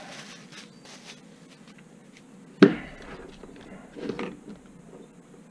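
Bubble-wrap bag crinkling and rustling as a LiPo battery pack is pulled out of it, with one sharp knock about two and a half seconds in.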